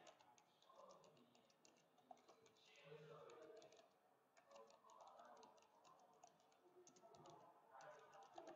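Faint typing on a computer keyboard: quick runs of key clicks broken by short pauses.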